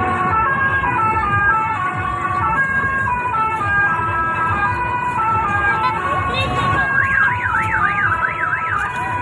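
Telolet musical horn playing a tune of held, stepped notes, then a fast warbling siren tone sweeping up and down several times about seven seconds in.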